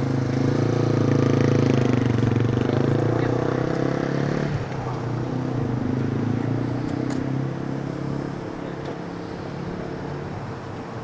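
A motor vehicle's engine running steadily, then dropping away abruptly about four and a half seconds in, leaving quieter outdoor background noise.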